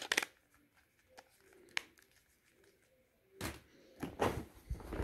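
Handling noise: a few sharp plastic clicks from a phone's back cover and casing at the start and a single click about two seconds in. Near the end come louder knocks and rustling as the cardboard shipping box and the phones inside it are moved.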